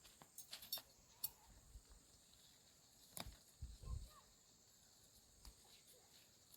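Near silence with a faint steady high hiss, a few soft clicks in the first second, and a couple of soft low knocks about three and four seconds in.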